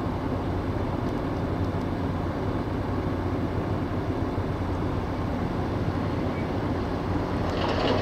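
A large patrol vessel's engine machinery running steadily, a low hum under a steady wash of harbour noise.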